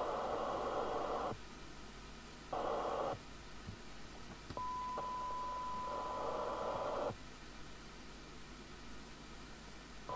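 The FM CB receiver's audio hiss cuts in and out abruptly several times as the squelch opens and closes. About halfway through, a steady 1 kHz test tone comes through the receiver for a couple of seconds, with the hiss returning under it before both cut off.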